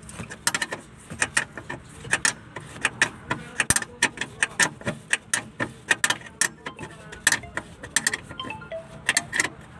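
Rapid metallic clicking and clinking of a ring spanner on a 13 mm nut as it is worked back and forth to tighten the clutch master cylinder mounting, a few clicks a second.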